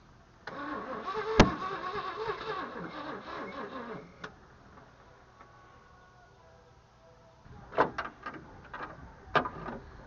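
Starter motor cranking the V8 in a Chevy S10 pickup for about three and a half seconds, with a sharp click about a second in; the engine does not catch, in a truck that has been refusing to start. A few sharp clicks or knocks follow near the end.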